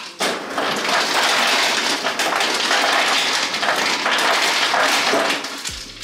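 Refrigerator door ice dispenser dropping ice cubes into a water bottle: a loud, continuous rattling clatter with a brief break just after the start, stopping near the end.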